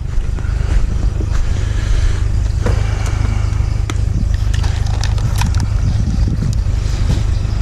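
Objects clicking and clattering as a box of discarded items is rummaged through by hand, over a steady low rumble.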